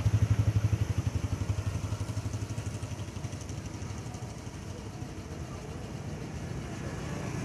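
An engine running with a low, rapid pulsing throb. It is loudest at first and fades over the first few seconds, then holds steady.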